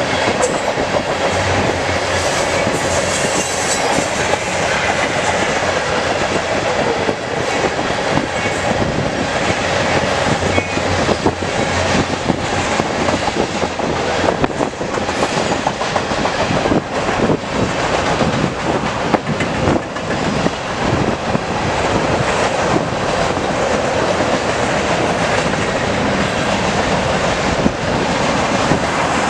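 Canadian Pacific manifest freight train rolling past close by, its cars' wheels clacking steadily on the rails.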